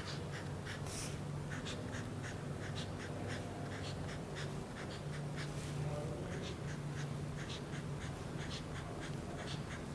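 Felt-tip marker writing on a paper workbook page: a string of short, faint scratches and taps as numerals are written one after another, with a faint steady low hum behind.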